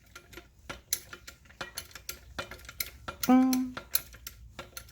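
Hydraulic trolley jack being pumped up to raise its lifting arm, giving irregular light metallic clicks and knocks. A short vocal sound is heard about three seconds in.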